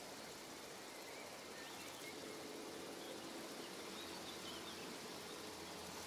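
Outdoor ambience: a steady hiss with a few faint, high bird chirps through the middle. A low steady hum comes in about two seconds in.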